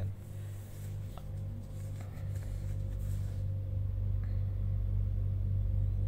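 A low, steady hum with a faint higher tone above it, and a few soft clicks.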